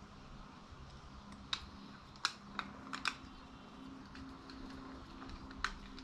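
Light, sharp clicks and taps of a screwdriver and small flathead screw against a brass Dinse welding-cable connector as the screw is driven back in, about six in all, mostly bunched in the middle, over a faint steady hum.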